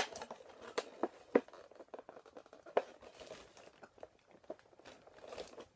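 Plastic and cardboard toy packaging being crinkled and pried at by hand, with scattered sharp clicks and crackles, as a tightly sealed Skylanders figure box is worked open.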